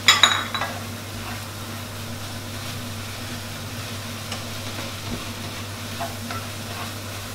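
Pad thai noodles with shrimp, bean sprouts and tofu sizzling in a non-stick wok while a wooden spatula stirs and tosses them. A sharp clink with a burst of sizzle comes right at the start, then a steady, even sizzle with a few light spatula scrapes.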